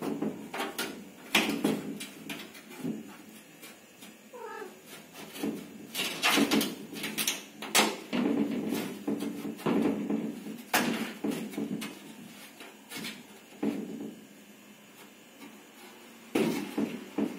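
Corrugated metal sheet rattling and knocking in irregular bursts as cats paw and bump against it, with one short cat meow about four and a half seconds in.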